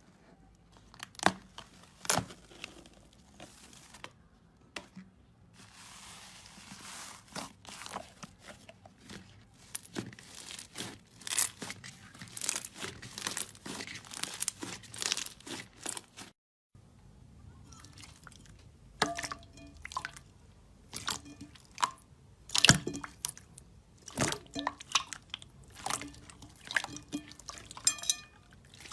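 Slime being squeezed and poked by hand: irregular clicking, popping and crackling, densest in the first half, broken by a brief total silence a little past the middle.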